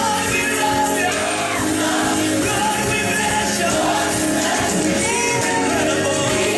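Upbeat gospel praise music with singing, playing steadily.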